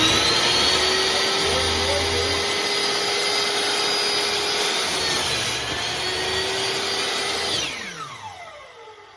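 Metabo HPT 10-inch compound miter saw's 15-amp motor running at full speed as the blade cuts through a piece of 4x2 lumber. Near the end it is switched off and the whine falls steadily in pitch as the blade spins down.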